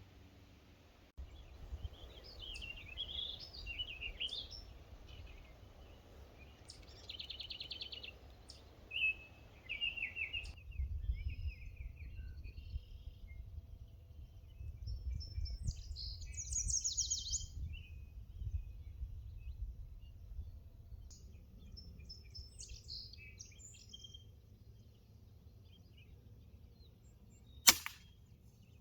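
Songbirds chirping and trilling on and off over a low rumble. Near the end comes a single sharp crack, a pellet rifle shot.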